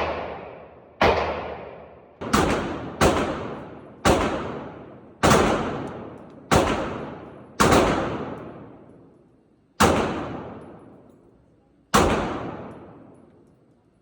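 Gunshots fired one at a time: about ten sharp reports, roughly one a second at first and spacing out near the end, each followed by a long echoing tail.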